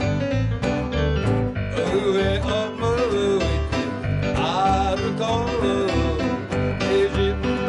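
Live band music: a nylon-string acoustic guitar with electric bass and keyboard, and a man singing the melody at the microphone over steady bass notes.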